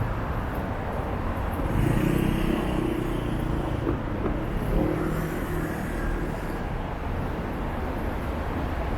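City street traffic: a steady rumble of road noise, with a vehicle's engine passing close by from about two seconds in until past six seconds.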